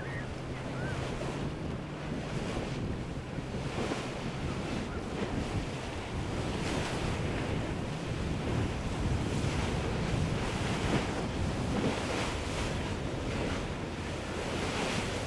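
Large motor yacht running through choppy water: its bow crashes into the waves and throws spray in repeated rushes, over a low steady engine hum that is clearest in the first few seconds. Wind buffets the microphone throughout.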